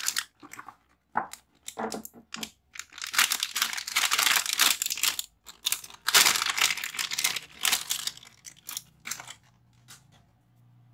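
Plastic packaging crinkling and rustling in irregular bursts, with a few sharp clicks, as a new laptop battery is unwrapped and handled; it dies away near the end.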